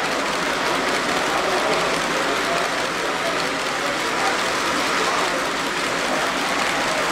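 H0-scale model freight train of flat wagons rolling past, its wheels rattling and clicking on the track, over the steady hubbub of a crowded exhibition hall.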